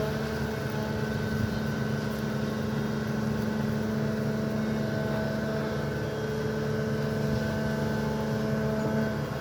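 SANY excavator's diesel engine running steadily with a constant hum.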